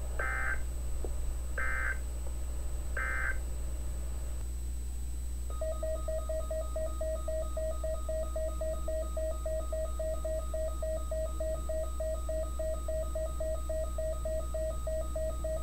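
Three short bursts of the EAS/SAME end-of-message data tones on NOAA Weather Radio, each about half a second of digital screeching, marking the end of a warning. After a short pause, a weather radio's alert beeps: a mid-pitched tone pulsing rapidly and evenly for about ten seconds, signalling that a new warning is being received.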